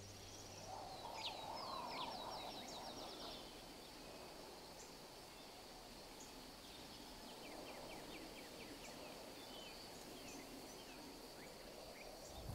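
Faint countryside ambience: scattered bird chirps and quick trills over a steady high hum, with a lower wavering call in the first few seconds.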